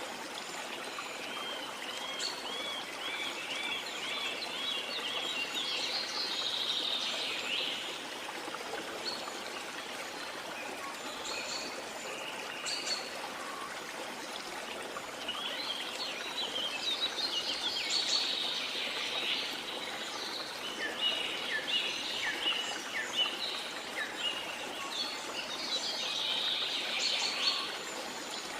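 Rainforest ambience: a steady hiss of rushing water with birds calling over it. The birds come in bursts, starting with a quick run of repeated looping notes and returning several times in clusters of chirps.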